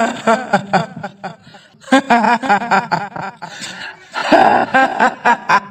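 A woman's voice laughing in quick 'hi-hi-hi' pulses, the kuntilanak ghost laugh of Indonesian horror sound effects. It comes in three bursts with short pauses between them.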